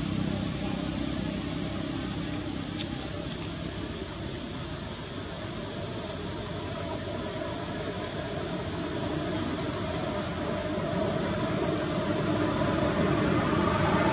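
Steady, unbroken high-pitched drone of insects in the forest, over a constant low rumble, with no calls from the macaques.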